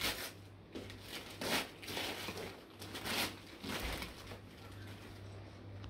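Wrapping paper being torn and crumpled by hand as a present is unwrapped, in short irregular rips and rustles.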